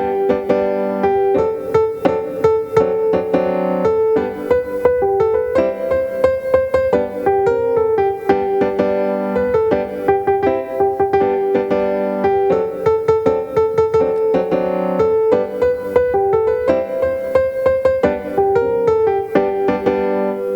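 Solo piano playing a simple tune with a steady beat of struck notes.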